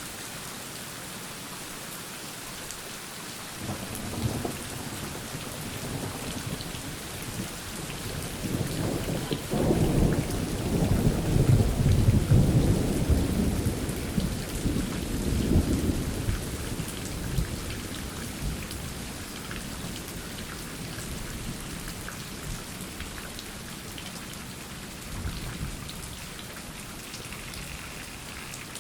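Steady rain falling, with a roll of thunder that builds about four seconds in, is loudest about ten to sixteen seconds in, and rumbles away by about twenty seconds.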